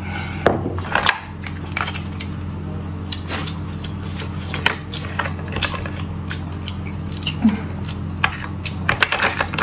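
Close-up eating sounds of raw oysters: wet mouth clicks and chewing, with oyster shells clacking as they are handled, several in quick succession near the end. A steady low hum runs underneath.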